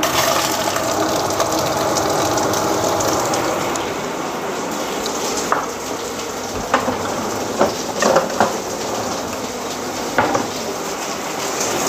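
Sliced onions frying in hot fat in a cast iron pot: a steady sizzle that eases slightly after a few seconds, with a handful of sharp pops and crackles in the second half.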